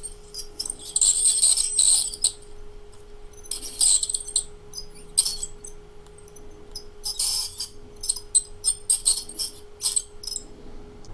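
Small electric dental drill running with a steady hum, its tip grinding against hardened tartar on the teeth in repeated short, scratchy bursts.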